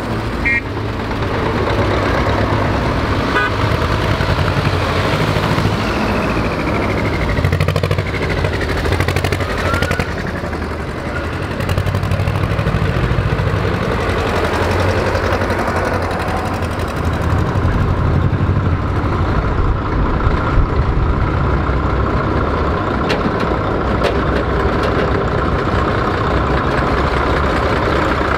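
Old tractor engines, among them Dutra tractors, running as one tractor after another drives past in a slow procession, a steady low engine rumble with pitch that shifts as each one passes.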